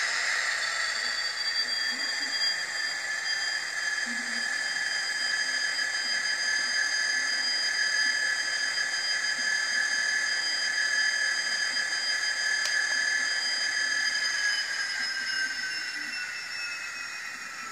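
Hornby TTS Class 66 sound decoder playing a diesel locomotive engine sound through the model's small speaker: a hissing running sound with steady high whining tones, which shift in pitch and fade over the last few seconds.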